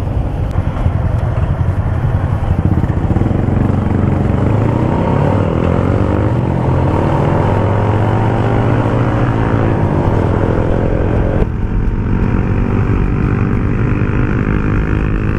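Yamaha LC motorcycle's single-cylinder engine running under way, with wind rushing past. The engine pitch climbs steadily through the middle, then drops suddenly about eleven seconds in, as at a gear change, and pulls on at a lower pitch.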